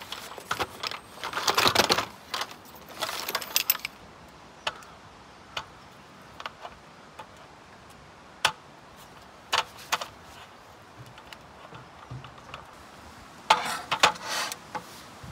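A folding camp table with a metal slat top being unpacked and set up: a rustle and clatter as it comes out of its fabric bag, then single sharp clicks as the frame and slats snap into place. Near the end a clatter as a wooden cutting board is set down on the metal top.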